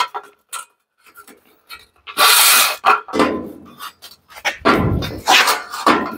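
Plastic cable drag chain being handled and laid against the sheet-metal side of a CNC plasma table: its links clack and rub on the steel in several separate bursts, the loudest about two seconds in.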